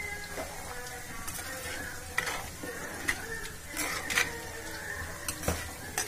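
Metal ladle stirring thick chicken tikka masala gravy in a pot as it sizzles, with several sharp knocks of the ladle against the pot, the loudest about four seconds in.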